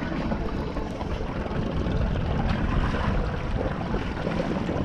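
Steady wind buffeting the microphone over water slapping and sloshing against a small boat's hull at sea.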